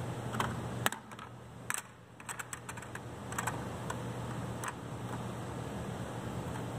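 Scattered light clicks and ticks of a screwdriver turning the retaining screw on the plastic removable terminal block of an Allen-Bradley 1769-OB16 output card, loosening it so the block can be pulled out. A low steady hum runs underneath.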